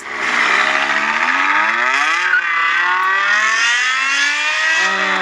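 BMW M5's V10 engine accelerating hard. Its note rises steadily, drops at an upshift a little over two seconds in, then climbs again and drops at a second upshift near the end.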